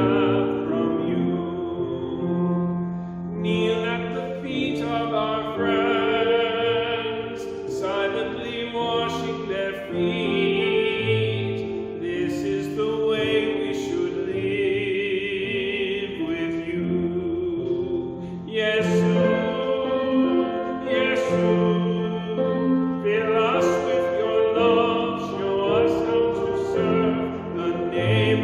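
Slow classical-style music: long held notes with vibrato over a keyboard accompaniment.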